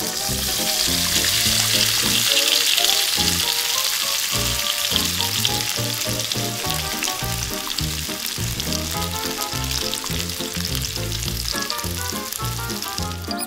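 Breaded eel frying in hot oil in a small metal wok: a loud, steady sizzling hiss that starts as the pieces go in, peaks after a couple of seconds and then eases slightly.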